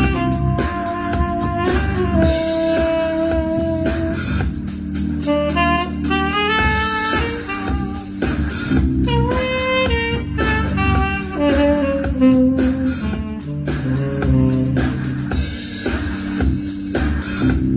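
Saxophone improvising over a funk backing track of guitar, bass and drums. It holds long notes at first, then plays quick runs up into high notes and back down to lower ones.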